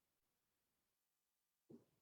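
Near silence: room tone, with a brief faint sound near the end.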